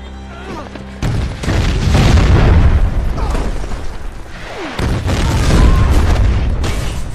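Movie battle explosions: a sudden blast about a second in with a long, heavy rumble, then a second blast about five seconds in.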